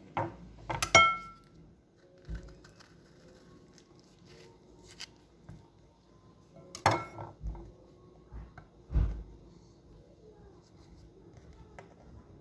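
Glass and kitchenware being handled and set down: two sharp clinks with a short ring, about a second in and again about seven seconds in, among softer taps and a few dull thuds.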